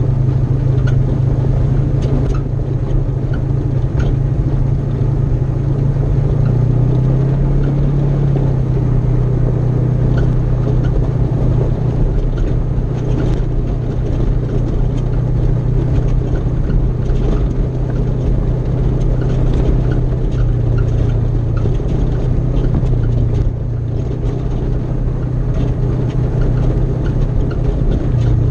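Polaris RZR side-by-side engine running steadily under way, a low drone whose pitch shifts slightly a couple of times, with light ticks of gravel from the dirt road.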